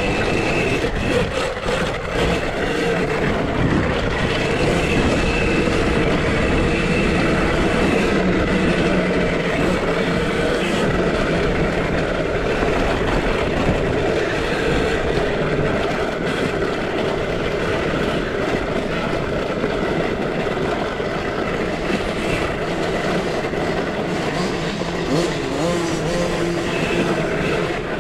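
2023 KTM SX-E5 electric minibike being ridden hard on a dirt track: a steady rush of wind and tyre and chain noise, with a faint motor whine that wavers in pitch.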